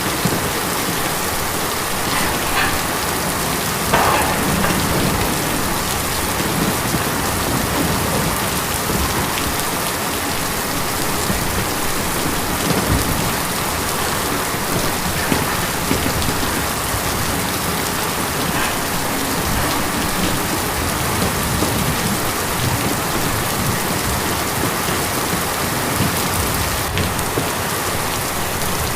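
Steady rain falling on tin, a dense even patter with now and then a single louder drop, the clearest about four seconds in.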